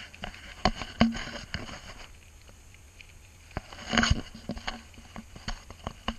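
Bicycle rattling and knocking as it rolls over a rough gravel road, with tyres crunching; the loudest jolts come about a second in and again around four seconds.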